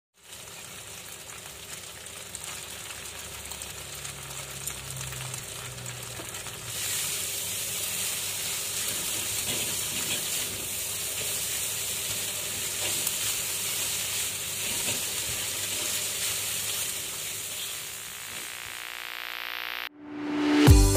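Fried rice sizzling in hot oil in a pan as it is stir-fried, a steady hiss that gets louder about seven seconds in. Music starts near the end.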